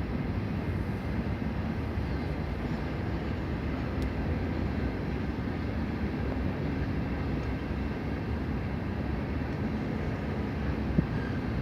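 Freight train hauled by CN diesel locomotives running past with a steady low rumble.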